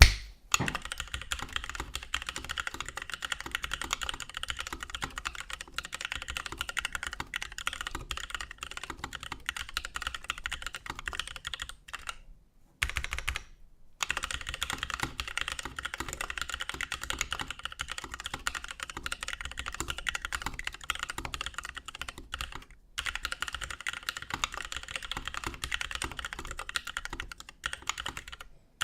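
Continuous fast typing on a mechanical keyboard with a brass plate, lubed NovelKeys Kailh Cream linear switches and DSA keycaps: a rapid stream of key clacks with a few brief pauses, the longest about 13 seconds in. It opens with a single sharp knock, the loudest sound here.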